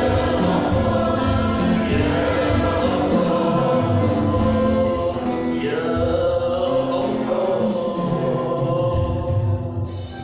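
Arabic Christian hymn sung by a choir with instrumental accompaniment.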